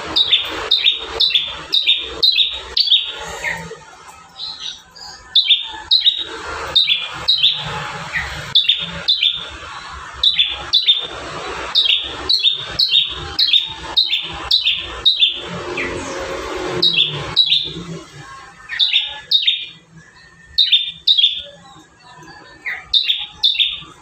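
Caged prenjak tamu (tailorbird) calling: runs of sharp, loud chirps, each dropping quickly in pitch, about two to three a second, broken by short pauses.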